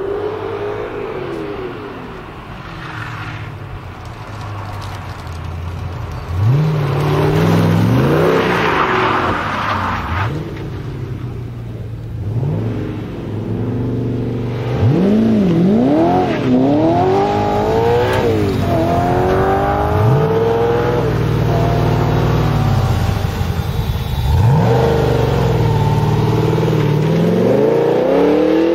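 Ultima GTR supercar engine accelerating hard several times, the revs climbing and dropping back at each gear change as the car drives past and away. There is a stretch of rough hissing noise about eight seconds in.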